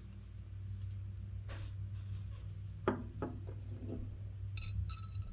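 Scattered light clicks, taps and rubbing from handling the small parts of a disassembled ratchet head, the pawl among them, over a steady low hum.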